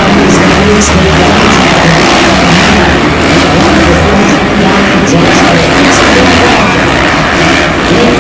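Supercross motorcycles racing, several engines at once with their pitch rising and falling as the riders work the throttles, over a dense steady wash of noise.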